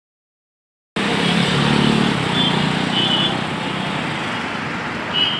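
Silent for about the first second, then road traffic starts abruptly: a steady rush of passing vehicles with engine sound from cars and motorbikes. A few brief high-pitched tones come about a second and a half in, around three seconds in and near the end.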